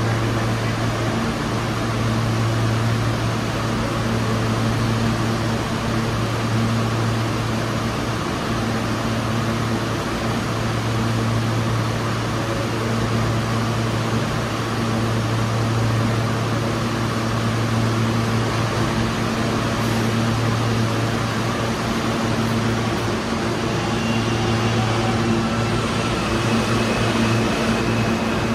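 Steady low machine hum over an even rush of air noise on a New York City subway platform. Faint high-pitched tones creep in during the last few seconds.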